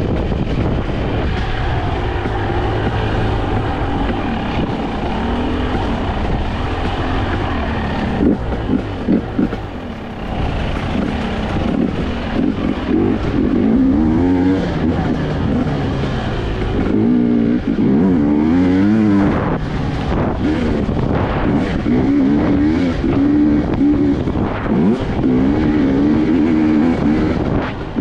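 Husqvarna TE250i fuel-injected two-stroke enduro engine being ridden on a trail, revving up and down again and again as the throttle is opened and closed. A few short thumps come about eight to nine seconds in.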